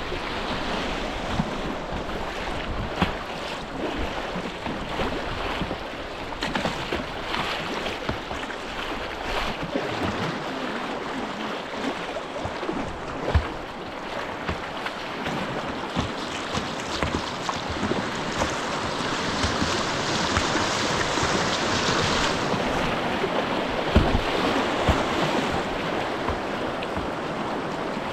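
Rushing white-water river running steadily, with wind buffeting the microphone and a few sharp knocks or splashes. The rush grows louder and brighter around two-thirds of the way through.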